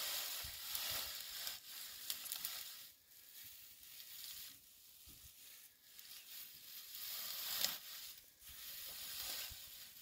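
Cut hay rustling as it is pushed and packed by hand into a small wooden box baler, the rustle coming and going unevenly.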